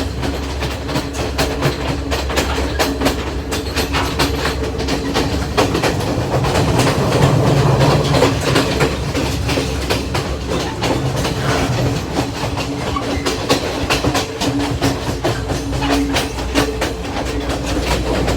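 Moving train: steady running noise with continual clicking and clattering of wheels on the rails, over a steady low hum.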